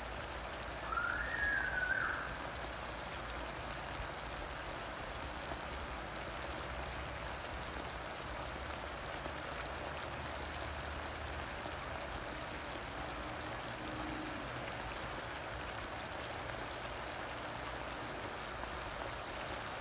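Chicken drumsticks sizzling in a pan of bubbling sauce: a steady, even hiss. A short high-pitched squeal sounds about a second in.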